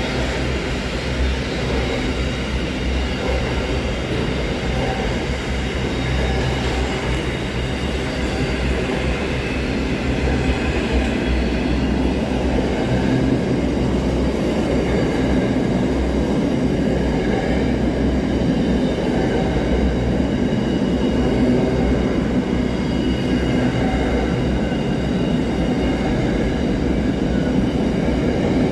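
Freight train rolling past on the track: a continuous rumble of wheels on rail. A deep low drone is strongest in the first part, and the rolling noise grows somewhat louder from about ten seconds in.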